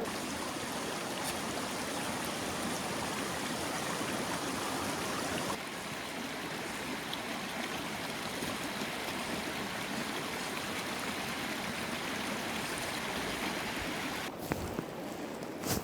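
River water flowing steadily, a continuous rush, dipping slightly in level a little over five seconds in.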